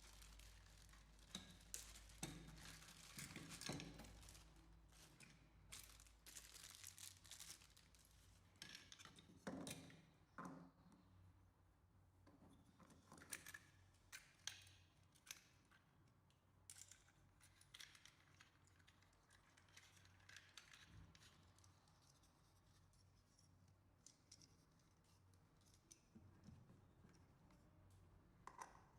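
Faint handling noises: scattered clicks, taps and rustles, busier in the first half, over a faint low hum.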